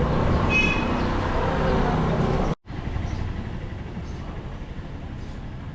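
Busy street noise with vehicle traffic and a brief high-pitched tone about half a second in, cutting off abruptly partway through to a quieter outdoor background.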